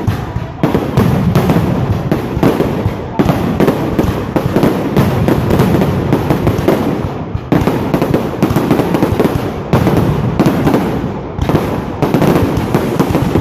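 Fireworks going off in a dense, continuous crackle of rapid bangs, with a few brief lulls.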